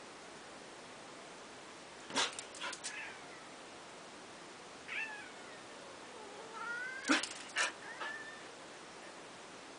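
Domestic cat meowing in protest while a dog pesters it: a short call about two seconds in, a falling meow at about five seconds, and a longer cry with rising and falling pitch around seven seconds, with sharp noisy bursts mixed in.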